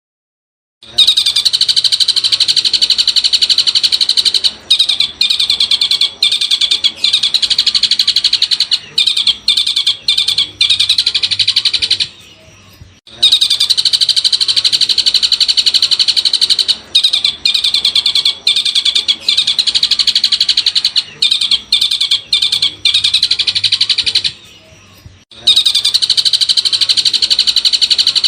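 Long-tailed shrike (cendet) singing a loud, fast, unbroken chattering song, high-pitched. The song breaks off twice for about a second, as a looped recording restarting.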